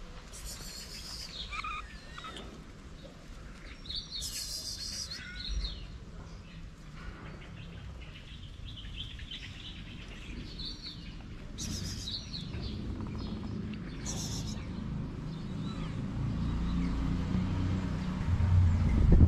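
Small birds chirping in short bursts, four or five times, over a low outdoor rumble that grows louder near the end.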